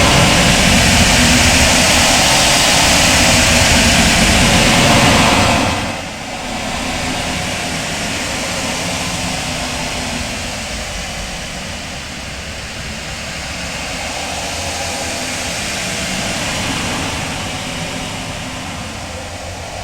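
Outer space ambience sound effect: a very loud, dense wash of noise over a deep rumble. About six seconds in the bright upper hiss falls away and it settles into a quieter, duller rumble that swells and eases slowly.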